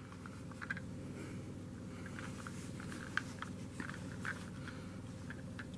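Faint scattered clicks and light taps of a plastic toy engine and boxcar being handled, over a steady low hum.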